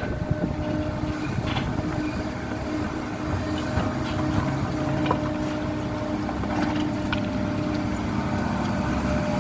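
Kobelco SK75 excavator's diesel engine running steadily, with a few faint clicks and knocks over it.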